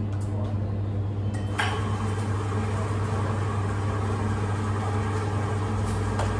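Steady low hum of café machinery behind an espresso counter, with a sharp clink about a second and a half in and light clatter of cups and dishes.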